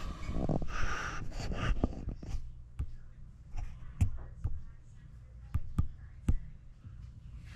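Scattered sharp clicks and light knocks, with rustling in the first couple of seconds, over a steady low hum.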